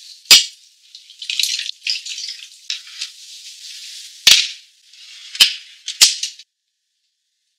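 Spoon stirring a liquid marinade in a glass bowl: swishing, rattly sounds with a sharp clink near the start. A few more sharp clicks follow, the last two about half a second apart.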